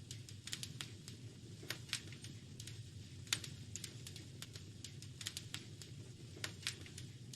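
Wood fire in a fireplace crackling, with irregular sharp pops and snaps, several a second, over a low steady rumble.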